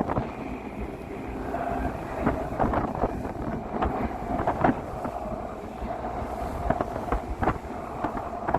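Tour boat's engine running steadily with a held drone, wind on the microphone, and scattered sharp knocks.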